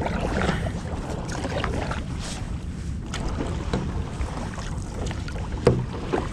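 Wind buffeting the microphone over water lapping at a stand-up paddleboard, with scattered light knocks, one louder knock a little before the end.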